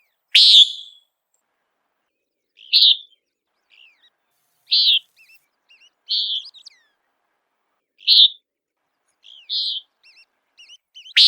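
Common nighthawk giving its short peent call again and again, about seven calls spaced a second and a half to two seconds apart, with fainter short notes in between.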